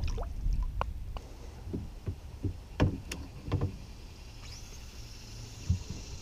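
Scattered hollow knocks and clunks against a plastic kayak, the loudest a little under three seconds in, over a steady low wind rumble on the camera microphone.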